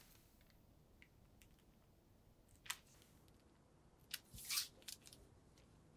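Scissors snipping through thin plastic sheet to cut out a small round hole. There is one sharp snip a little under halfway through, then about a second and a half later a louder half-second cut as the plastic crinkles, with faint clicks in between.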